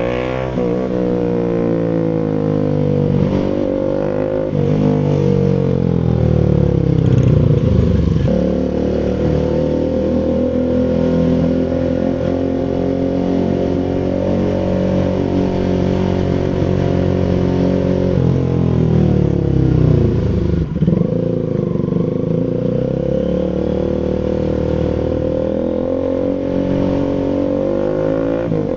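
Bajaj Rouser RS200's single-cylinder engine through an SC Project full exhaust, revs rising and falling. The revs hold steady for about ten seconds in the middle, then drop sharply and climb again near the end.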